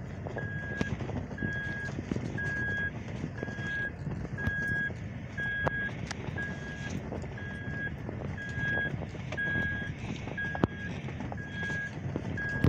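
Toyota 4Runner's cabin warning chime beeping steadily at one pitch, about two beeps a second, over the low rumble of the truck crawling over rough ground, with scattered knocks and rattles from the bumps.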